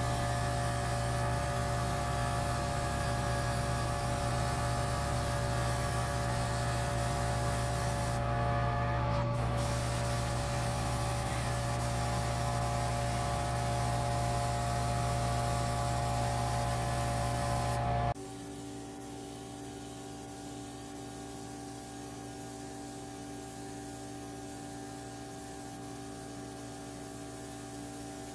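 A steady machine hum with an even hiss. About two-thirds of the way in it changes suddenly to a quieter, different hum.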